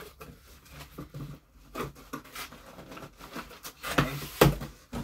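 Cardboard mailing box handled: flaps pulled open and packing paper rustled inside, with scattered rustles and knocks and two louder thumps near the end.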